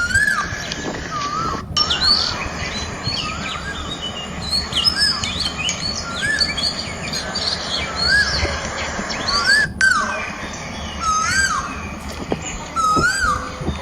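Several birds calling outdoors: one repeats a short rising-and-falling whistle about once a second, while others add many higher quick chirps over a steady low background noise.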